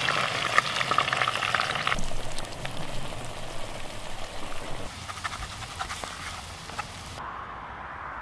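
Beaten eggs sizzling as they are poured into a hot pan of frying winter chanterelles. The crackling sizzle is loud at first, drops off sharply about two seconds in, then carries on quieter with scattered pops.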